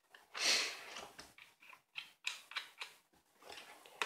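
A speedlight's mounting foot scraping as it slides onto a camera's hot shoe, then a series of small irregular plastic and metal clicks as it is seated.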